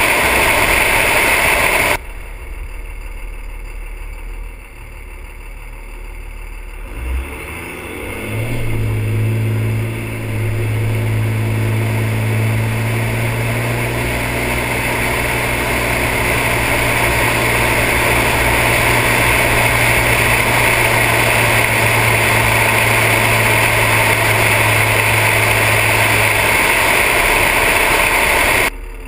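5.9-litre 24-valve Cummins turbo diesel of a 1999 Dodge Ram 2500 running as the truck drives, mixed with loud wind and road rush on a camera mounted outside the body. The engine note climbs about seven seconds in as the truck speeds up, then holds steady. The sound drops abruptly about two seconds in and again near the end.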